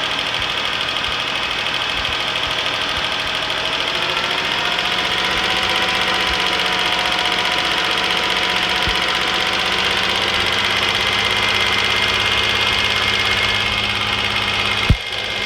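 Cadillac CTS 3.6L LY7 DOHC V6 running steadily with a rapid tick, its engine speed rising slightly about four seconds in. The tick follows engine speed and has appeared since a timing chain replacement. A single sharp click sounds just before the end.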